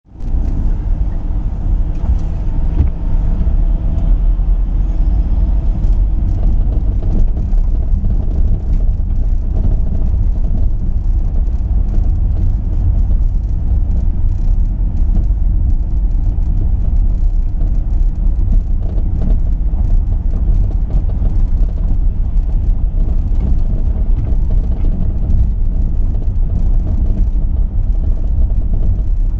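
A motor vehicle engine running steadily, a loud deep rumble with no let-up.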